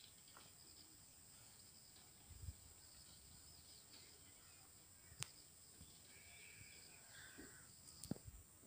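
Near silence: faint rural ambience with a steady high insect drone, a few soft bird chirps and three short sharp clicks.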